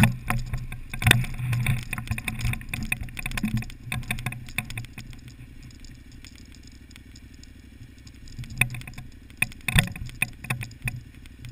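KTM 950/990 adventure motorcycle's V-twin engine running at low speed on a loose rocky trail, with the bike clattering and knocking over the rocks for the first few seconds and again near the end. In between, the engine runs more quietly and steadily.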